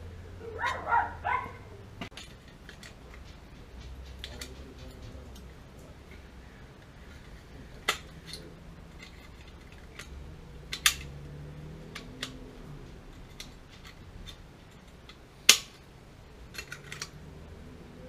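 Scattered metal clinks and taps as a wrench and a gas water heater's removed burner assembly are handled. The loudest is a sharp clank about three-quarters of the way through, over a low steady hum. A short cluster of higher sounds comes about a second in.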